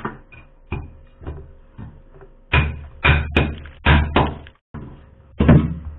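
A hammer striking the packed ice buildup inside a freezer to break it loose during defrosting. The blows are irregular, about half a dozen hard knocks, the heavier ones in the second half.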